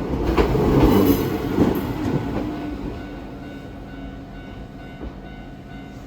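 Iga Railway electric train passing over a level crossing, its wheels clacking over rail joints a few times, then the train noise fading away over the next few seconds as it moves off.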